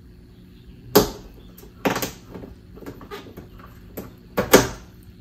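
Window seal molding bracket on a 2009 Honda Civic door being pried loose with a pry tool. It gives a series of sharp clicks and snaps: loud ones about a second and two seconds in, lighter ticks in between, and a close pair near the end, the last one the loudest.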